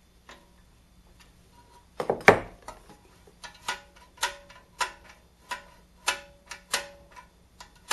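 Metallic clicks from a hand tool working a screw into a small metal linkage bracket, about two a second with a slight ring. They start about two seconds in, the loudest being a cluster of knocks just after they begin.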